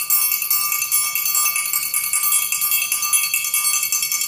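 Fast triangle roll: the metal beater rattles quickly back and forth inside the triangle, keeping it ringing continuously with a rapid flutter of strokes.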